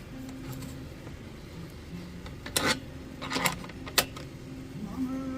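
Metal clinks and a few sharp knocks as a lantern's fount is set into a lantern vise and snugged down, the loudest knocks coming about two and a half to four seconds in.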